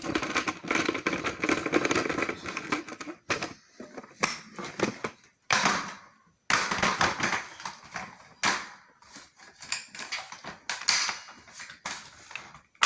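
Hoover upright vacuum's plastic parts and attachments being handled, with irregular clicks, knocks and rattles and short scraping rustles; the vacuum is not running.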